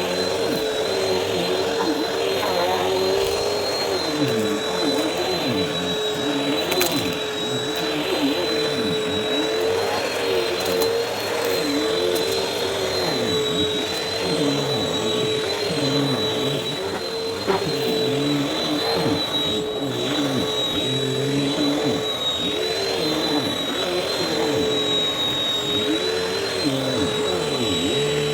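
Vacuum cleaner with a brushroll running, its motor holding a steady high whine. A lower hum dips and rises again and again, every second or two, as the vacuum is pushed back and forth in quick strokes.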